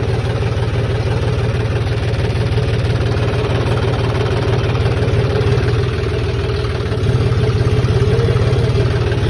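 John Deere diesel tractor engine running steadily at low speed as the tractor is driven, heard from the driver's seat, a little louder from about seven seconds in.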